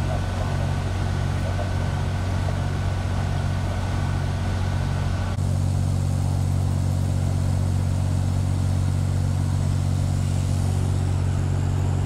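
Diesel engine of a fire engine idling, a steady deep hum. It shifts abruptly about five seconds in, then runs on unchanged.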